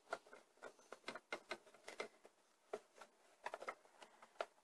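Faint, irregular small clicks and taps of hands working a plastic Play-Doh ice-lolly mould, pressing dough into one half of it.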